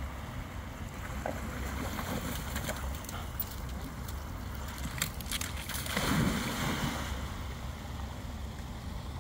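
Creek water running over a small weir, with wind on the microphone. About six seconds in comes a loud splash as a dog leaps into the water.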